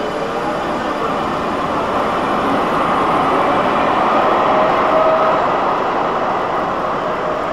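Grenoble Alsthom TFS tram rolling past close by at low speed, its traction motors giving a faint whine over a steady rushing noise. The whine and the overall level swell slightly about four to five seconds in as the cars go by.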